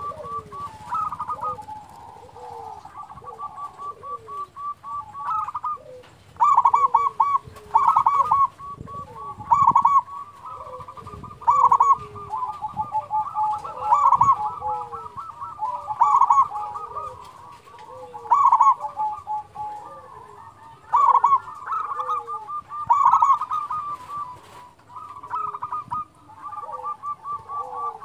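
Zebra dove (perkutut) cooing in rapid staccato phrases. Loud phrases come about every two seconds over fainter, continuous cooing.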